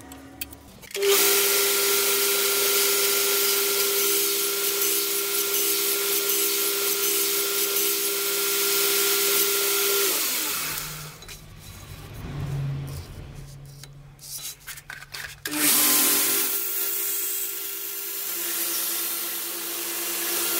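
Power grinder running as a steel blade of chainsaw-chain damascus is ground on it, a steady hum under a hissing scrape. It starts about a second in, winds down about ten seconds in, and starts up again about five seconds later.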